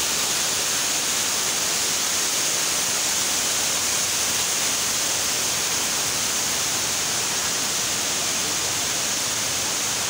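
Waterfall and river rushing: a steady, even roar of falling and running water.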